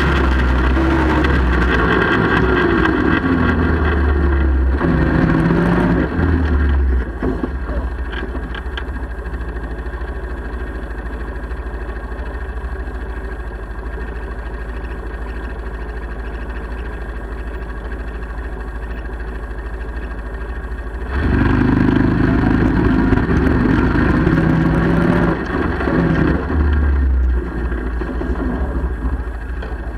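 ATV engine running under way with rising and falling pitch, then settling to a steady idle about seven seconds in. It revs and runs louder again for several seconds about two thirds of the way through before dropping back to idle near the end.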